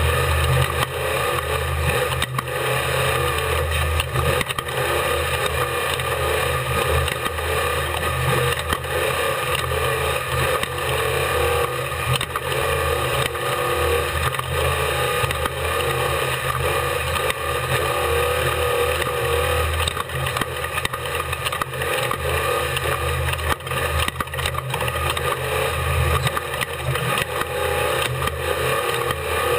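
Off-road race vehicle's engine running hard at a steady load, heard from onboard under constant wind and course noise, with many short knocks and rattles from the rough track.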